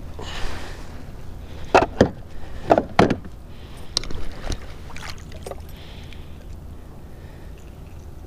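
A hooked blue catfish splashing beside a kayak as it is brought to the boat. The loudest moments are four sharp splashes or knocks in two pairs, about two and three seconds in, followed by a few lighter clicks.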